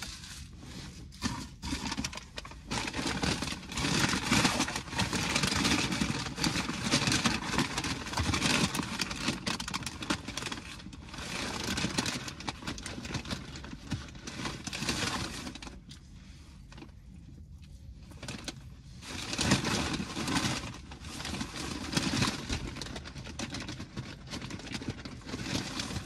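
Paper takeout bag and food wrappers rustling and crinkling as they are handled, in irregular spells with a short quieter stretch past the middle.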